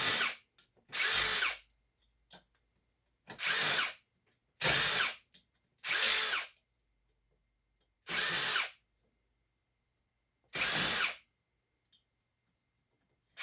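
Power drill running in short bursts of under a second each, about seven times, with pauses of one to two seconds between them.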